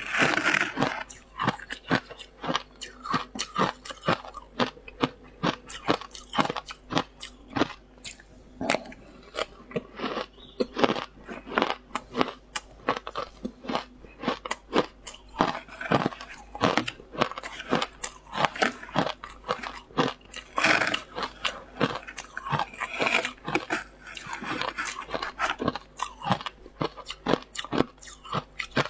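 Matcha ice being bitten and chewed: a dense, irregular run of sharp crunches, several a second.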